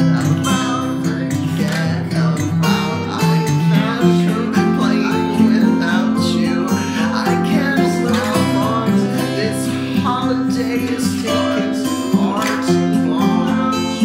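Music: a song carried by strummed acoustic guitar over steady sustained low notes.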